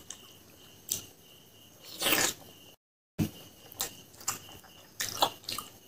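Close-up eating sounds of a fried pork leg being chewed, with wet clicks and lip smacks and one louder slurp or breath about two seconds in. A steady cricket chirr runs underneath, and the sound drops out completely for half a second near the middle.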